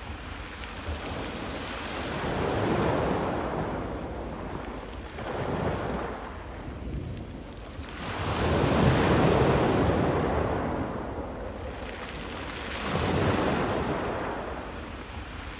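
Rough sea waves breaking on a pebble beach, the stones rattling as the water surges up and drags back. Four waves swell and fade one after another, the loudest a little past halfway.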